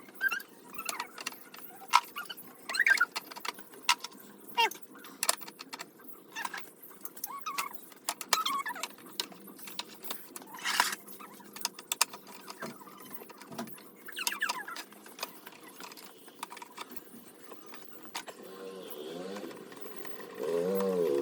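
Irregular clicks, taps and small squeaks of hard parts being handled and knocked together. Near the end a wavering, pitched tone comes in.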